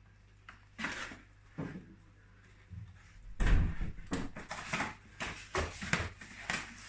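Coffee machine box and its packaging being handled during unboxing: scattered knocks and rustles, with a heavier thud about three and a half seconds in, then a quick run of clicks and rustles.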